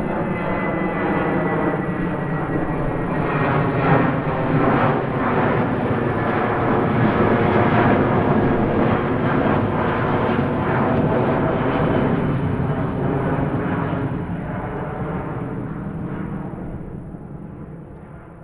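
Airplane engines running loud and steady, then dying away over the last few seconds as the aircraft moves off.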